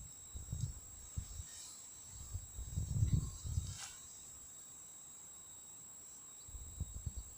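A steady, high-pitched insect trill, typical of a cricket, running unbroken. It is overlaid by a few irregular low rumbling bumps, loudest a few seconds in.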